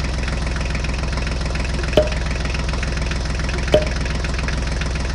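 Tractor engine idling steadily, a sound effect laid over the toy tractor, with a short sharp click about two seconds in and another just before four seconds.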